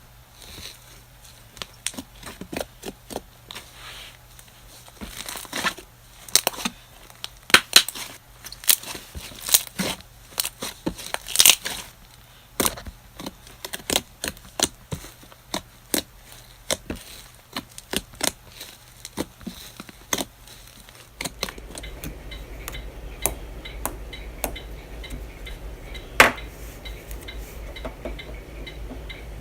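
Slime being squeezed and poked by hand, making many sharp, irregular crackles and pops. About two-thirds of the way through, the sound changes to a steady low hum with softer crackling and one sharp click.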